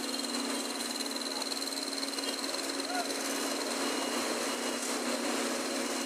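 Case road roller's engine running steadily: a constant drone with a steady hum and a thin high whine, and a short faint chirp about three seconds in.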